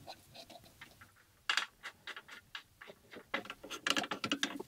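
Irregular light clicks and taps of quilting-frame parts being fitted together: sidewalls set onto the track ends and their thumb screws turned in. A sharper knock comes about a second and a half in, and a busy run of clicks near the end.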